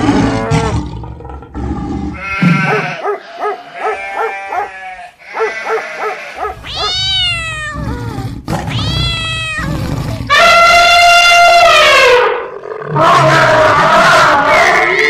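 A series of animal calls: rough, low calls near the start, then separate pitched cries that rise and fall in pitch. The longest and loudest cry comes about ten seconds in, followed by another near the end.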